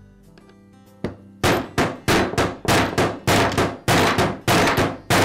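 Rubber shop mallet striking a steel socket held on the outer race of a new 6201 ball bearing, tapping it into the trimmer's crankcase half. A single tap about a second in, then a steady run of blows about three a second, each with a short ring from the socket.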